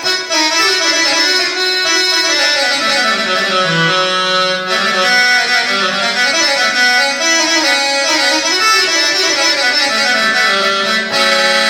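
Korg TR synthesizer keyboard playing a melody over sustained chords with one of its Indian instrument tones, with a brief break about five seconds in.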